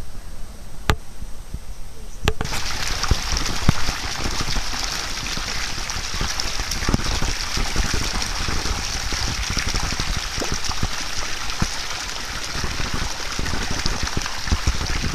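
Water in a sea-turtle pool, a steady rush of running, splashing water that starts suddenly about two seconds in and carries on, with a low rumble and occasional knocks beneath it.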